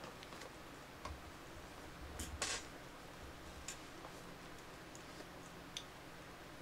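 Faint scattered clicks at a computer desk, with a louder short rustling click about two and a half seconds in and a sharp tick near the end, over a faint steady electrical hum.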